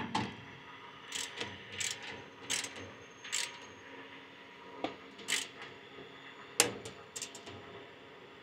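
Ratcheting torque wrench clicking in short, uneven strokes while tightening a duct clamp nut on a jet engine's bleed valve, with a sharper click about six and a half seconds in.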